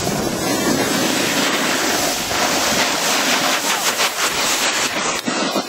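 Rushing noise of skiing at speed with the camera: wind buffeting the microphone and skis scraping over the snow.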